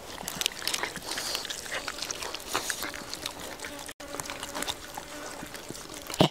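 Dog chewing and crunching cooked fish bones: a busy, irregular run of short crisp crunches, with one louder knock near the end.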